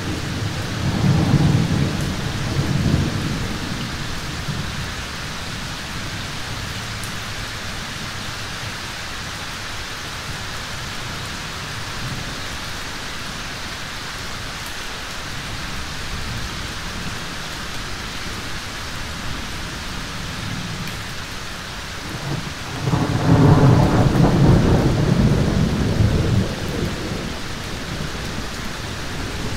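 Thunderstorm: steady rain hissing throughout, with rolling thunder. One rumble comes in the first few seconds, and a louder, longer peal starts about three-quarters of the way through and rolls on for several seconds.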